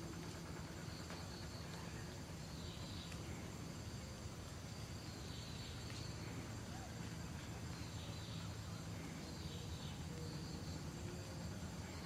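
Steady chirring of insects, with a few short falling calls now and then.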